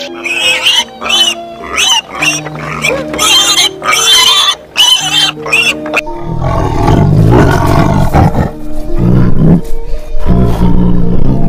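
Wild boar piglets squealing in short high calls, about two a second, then from about halfway a tiger growling in three long low calls, all over background music.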